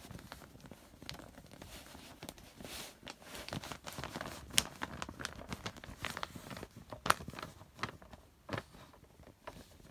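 Plastic case clips of an LG LED monitor clicking and crackling as a knife blade pries the case apart along its edge, with scraping between. Two sharper snaps come about four and a half and seven seconds in.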